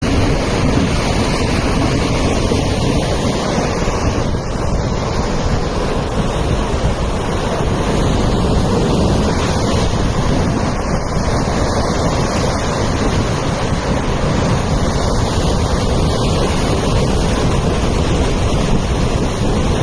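Loud, steady rushing noise of floodwater, with wind buffeting the microphone.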